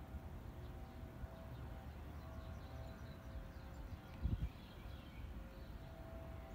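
Faint outdoor ambience: a steady low rumble with a few faint bird chirps, and a brief low thump about four seconds in.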